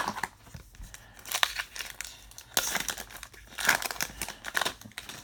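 Irregular rustling and crinkling of baseball cards being handled and shuffled through, with small papery clicks.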